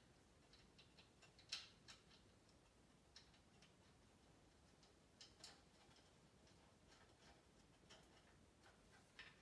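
Faint, scattered metal clicks and ticks of bolts and nuts being handled and fitted to the steel frame of a DeWalt rolling table saw stand. They are irregular and a few seconds apart, with the sharpest one about a second and a half in.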